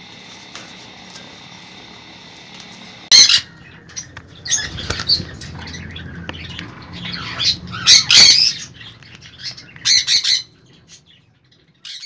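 Caged sun conures screeching in loud, harsh bursts, several of them between about three and ten seconds in. Before the first screech there is only a steady background hum.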